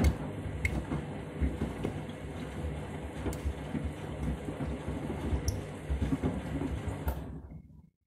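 Candy front-loading washing machine drum turning a load of shoes in sudsy water on a delicates wash. The motor hums low and steady while the shoes knock unevenly against the drum, with a few sharp clicks. The sound cuts off near the end.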